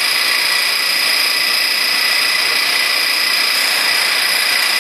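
Round vibratory sieve machine running steadily, shaking powder across its screen: an even mechanical noise with two steady high-pitched tones.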